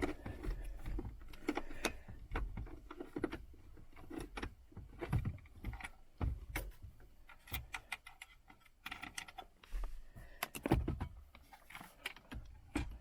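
Irregular clicks, knocks and small rattles of plastic and metal parts being handled while a car radio head unit and its dashboard parts are worked loose.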